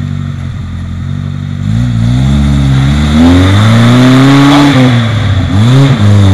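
Suzuki Samurai 4x4's engine under load on a muddy climb. It runs low and steady at first, then about two seconds in it revs up, louder, its pitch rising and falling, with a brief dip in revs near the end.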